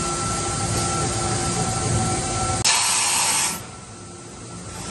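Mazak PFH-5800 horizontal machining center running with a steady hum and a few held whining tones, then, just past halfway, a sudden sharp hiss of compressed air lasting about a second as the spindle releases its tool; after the hiss the machine runs quieter.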